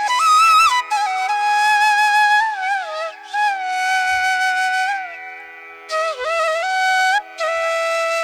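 Flute melody for a ringtone, played in several short phrases of long held notes joined by pitch bends, over a faint steady drone.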